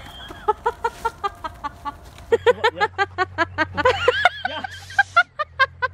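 A woman laughing hard in quick staccato bursts of about five a second, growing louder about two seconds in, with a few high squeaky notes in the middle.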